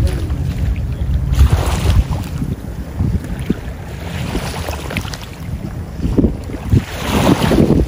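Wind buffeting the microphone in uneven gusts, a deep rumble with rushing swells that rise about a second and a half in and again near the end.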